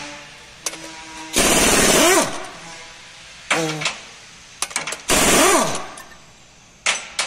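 Impact wrench hammering on the flywheel bolts of an Isuzu D-Max diesel engine, loosening them to take the flywheel off and reach the leaking rear crankshaft oil seal. Three bursts, two of about a second and a short one between, each with the motor's pitch rising then falling, and a few light metallic clicks in between.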